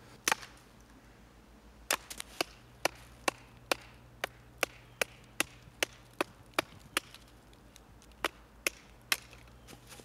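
Wooden baton striking the spine of a SOG Vulcan folding knife to split a piece of dry, well-seasoned pine: a run of sharp wooden knocks, about two or three a second. There is a pause after the first blow and another shorter one near the end.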